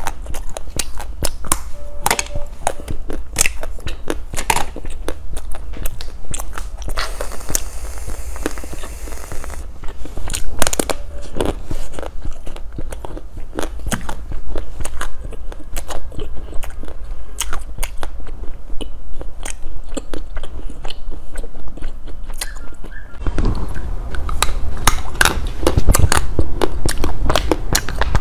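Close-miked biting and crunching of brittle novelty candy, many sharp irregular cracks with chewing in between. Near the end the crunching turns fuller and lower as a chocolate piece is bitten.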